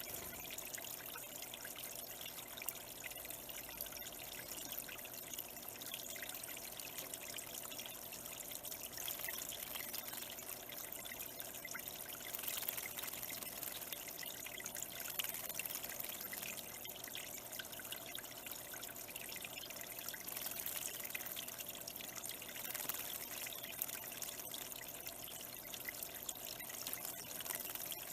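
Water trickling and pouring steadily through a small backyard bird pond, its flow kept running by a pump.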